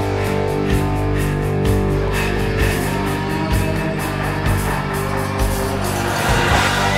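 Hard rock music: electric guitars over a steady drum beat.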